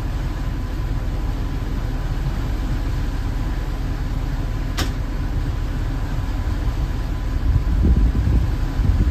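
Motor cruiser's engine running steadily underway, a low rumble, with a single sharp click about halfway through. Near the end the rumble grows louder and more uneven.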